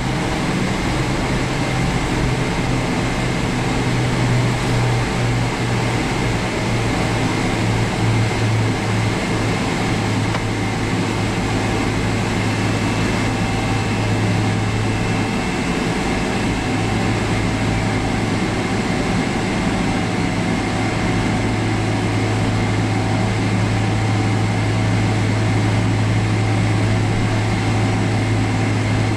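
Cabin noise inside a Boeing 777-300ER rolling down the runway for takeoff: the GE90 engines and the airflow make a steady loud rumble and rush, with a strong low hum throughout.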